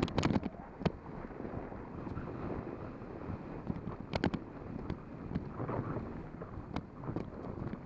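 Steady wind rush on the microphone from riding a bicycle, with a few sharp clicks or knocks scattered through: several near the start, a pair about four seconds in and one near the end.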